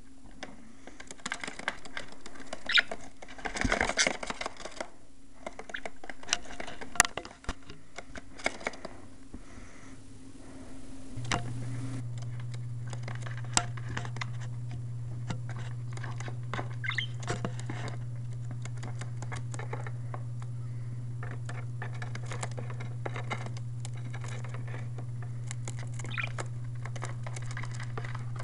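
Budgies moving about, with many small scattered taps, clicks and scratches of feet and beaks. A steady low hum comes on about a third of the way in and continues under them.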